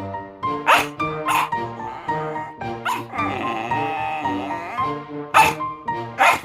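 A miniature dachshund barking in short, sharp barks, about five over a few seconds, with two close together about a second in and two more near the end, over steady background music.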